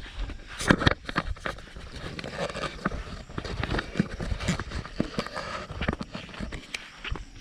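Footsteps crunching and rustling on the ground at an irregular pace, as someone walks.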